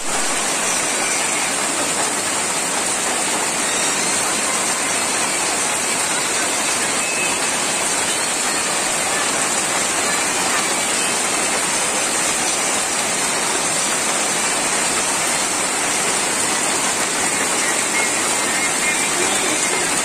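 Steady heavy downpour on corrugated metal roofs and the ground, with runoff pouring off the roof edge in a stream.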